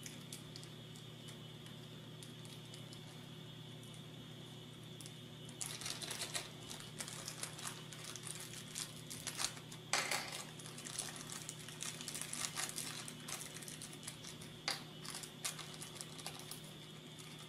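Small plastic parts bag crinkling and rustling faintly as fingers open it and pick out M3 nuts, starting about five seconds in, with a few light clicks.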